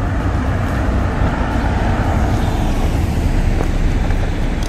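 Steady outdoor noise of wind rumbling on the phone's microphone, with road traffic passing.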